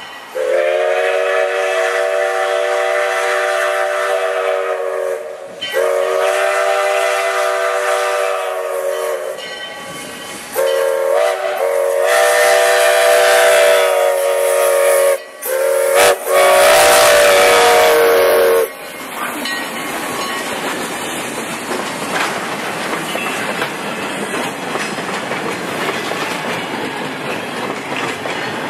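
Steam whistle of a 1907 Baldwin 2-6-0 steam locomotive blowing a series of long and short blasts, the last long blast cutting off a little past halfway. Then the wooden passenger coaches roll past with steady wheel clatter on the rails.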